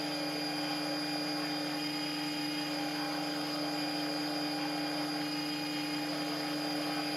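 Belt grinder running steadily, its motor and belt giving a constant whine and hum while a small steel part is held against the abrasive belt.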